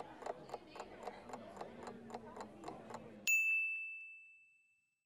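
Countdown-timer sound effect: a clock ticking about four times a second, then a bell-like ding about three seconds in that signals time is up and rings out for about a second.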